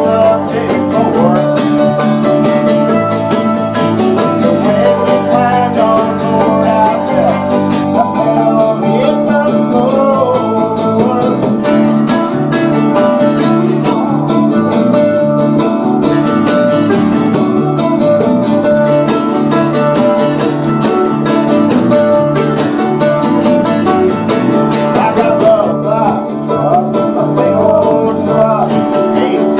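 Small acoustic country-rock band playing a song: mandolin and acoustic guitar strumming, with hand percussion and bass guitar through an amp, under a male lead vocal.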